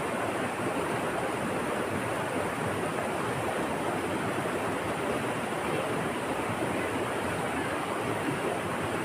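Steady rushing noise of moving water, even and unbroken, with a faint high steady hiss above it.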